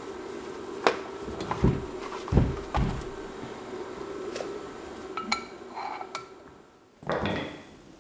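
A heavy machined steel plate being handled and set down on a workbench: a series of knocks and clinks of metal, the loudest bunched in the first few seconds and a few short ringing clinks later, over a steady hum.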